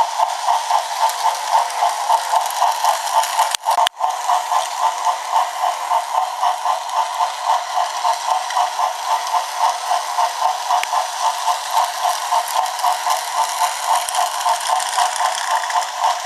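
Small battery toy motors and plastic gearing whirring with a steady rhythmic clatter of about three pulses a second, cutting out for a moment about three and a half seconds in.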